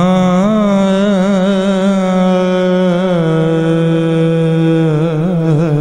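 A man's voice singing a devotional kalam through a microphone, one long drawn-out sung line without words. The pitch wavers in ornaments at the start, holds steadier with a step down about three seconds in, and wavers again near the end.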